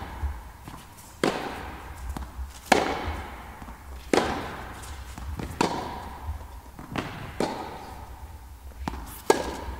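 Tennis balls struck back and forth by racket strings in a baseline rally, a sharp pop about every one and a half seconds, echoing in an indoor tennis hall. Fainter ticks of ball bounces and shoe squeaks fall between the hits.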